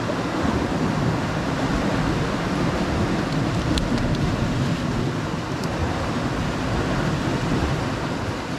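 Steady wind buffeting the microphone over surf washing against shoreline rocks, as a continuous low rumble and hiss.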